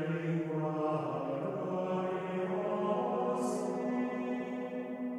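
Slow, chant-like vocal music of long held notes, moving to a higher sustained note about two seconds in, with a brief hiss near the middle.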